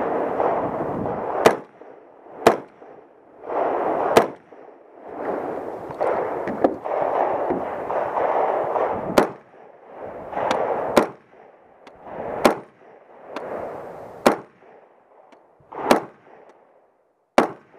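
Daytona Tactical AR-15 in .300 Blackout firing about ten single shots at an uneven pace, roughly one to two seconds apart, each a sharp crack. Between shots there are stretches of rustling noise.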